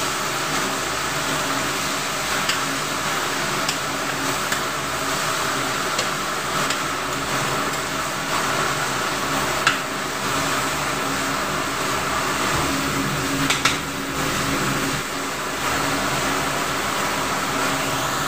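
Chunks of beef sautéing in a large aluminium wok: a steady sizzle over a constant low mechanical hum. A few light clinks and scrapes of a metal spatula against the pan come through, the sharpest about halfway through and again a few seconds later.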